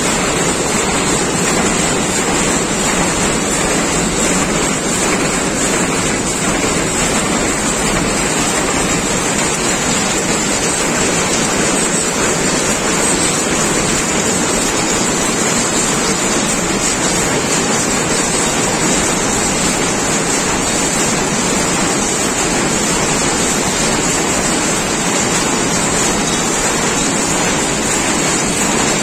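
Several rapier power looms running together, their mechanisms merging into a loud, steady mechanical noise with no breaks.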